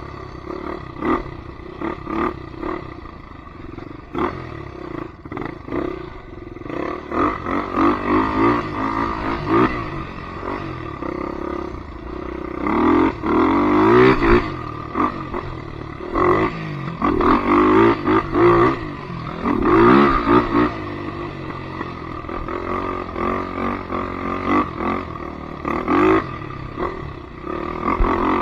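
Polaris Predator 500 ATV's single-cylinder four-stroke engine revving, its pitch rising and falling over and over with repeated surges of throttle.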